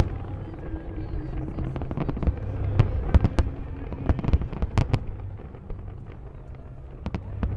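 Aerial fireworks bursting: an irregular string of sharp bangs and crackles, easing off for a stretch around six seconds in before picking up again near the end.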